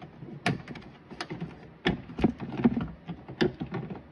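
Sharp clicks and knocks at irregular intervals as a control panel is slid and seated into the ball machine's plastic housing, about six hard ones over the few seconds, with handling clatter between them.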